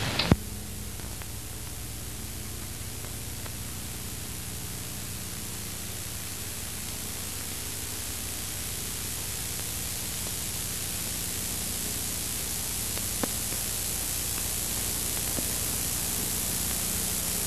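Steady hiss and static from an old recording's audio track, with a low hum underneath, slowly growing louder. There is no music or speech, and one faint click comes about 13 seconds in.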